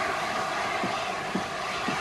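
Three-cylinder LNER A4 Pacific steam locomotive 60009 working away with its train: slow, even exhaust beats about two a second over a steady hiss of steam.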